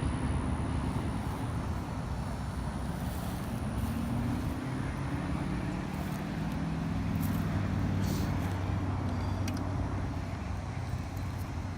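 An engine running steadily, its pitch slowly drifting up and down.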